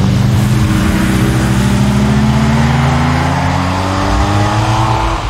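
A motor vehicle's engine accelerating, its pitch rising steadily for about five seconds, then breaking off near the end.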